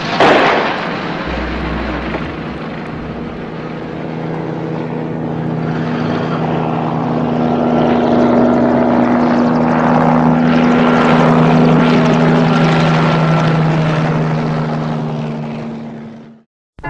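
Steady, loud engine drone with a noisy wash over it, starting with a sudden loud burst, swelling through the middle and fading out just before the end.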